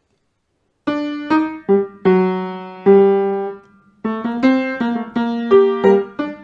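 Solo piano starting to play about a second in: a melody of struck notes and chords that ring and fade, with a brief pause a little past halfway before the playing goes on.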